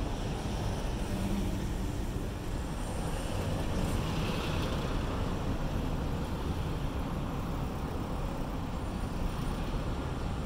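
Wind buffeting the microphone outdoors: a steady, uneven low rumble with a hiss above it, and no distinct event standing out.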